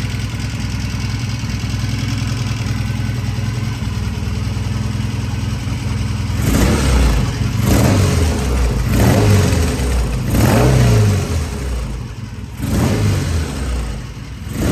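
Norton Commando Interstate's parallel-twin engine idling steadily at its just-lowered idle, then from about six seconds in blipped repeatedly, about five short revs that rise and fall back toward idle. It is running well.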